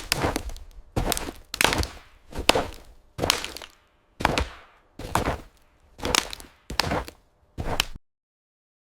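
Running footsteps sound effect: about ten heavy footfalls, a little more than one a second, each a sharp hit with a short scuffing tail. It cuts off suddenly near the end.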